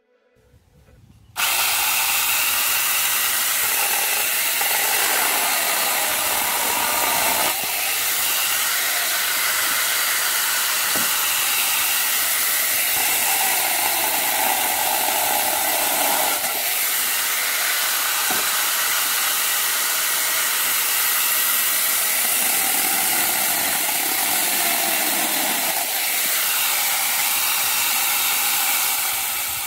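Electric angle grinder driving a chainsaw bar-and-chain attachment, starting up abruptly and running at full speed while the chain cuts through small logs. Its note shifts now and then as the chain bites the wood, and it dies away near the end.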